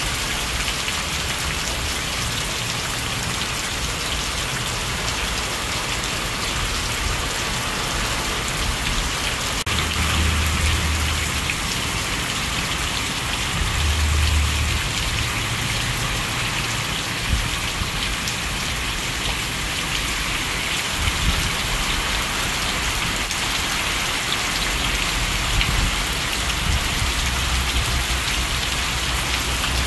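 Heavy hurricane rain pouring steadily onto a lawn, trees and a brick porch, with a few brief low rumbles.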